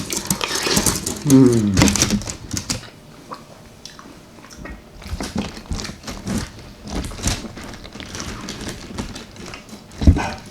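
Close-miked eating: chewing and mouth sounds with many small clicks and crackles, a short hummed "mm" about a second in, and a low thump near the end.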